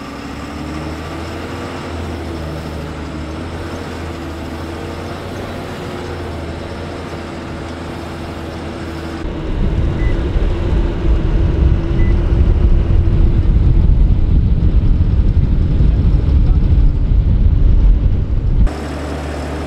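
Sisu Nasu tracked carrier's engine running steadily under way, loud inside a cab that still lacks its insulation and sound deadening. About nine seconds in, the sound switches to a much louder, rougher low rumble heard from the front of the vehicle as it drives over mud toward the water, then drops back suddenly near the end.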